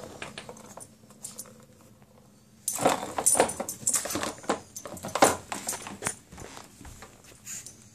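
Ball clicking and clattering around the plastic track of a circular cat toy as a puppy paws at it. There is a dense burst of rattling clicks about three seconds in that thins out after a few seconds.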